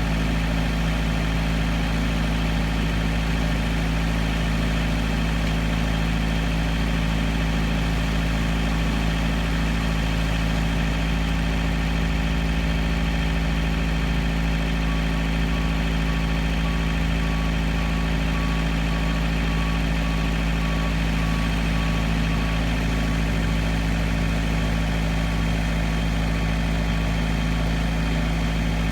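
Heavy engine running steadily at an unchanging speed, with a deep constant hum. From about halfway in, a faint high beep repeats at even intervals.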